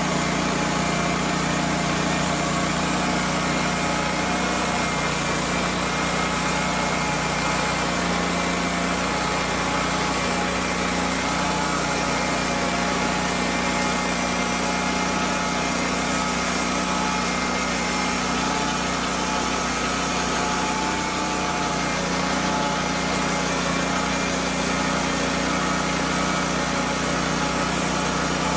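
Mobile band sawmill running steadily on its engine while the band blade saws lengthwise through a squared oak beam.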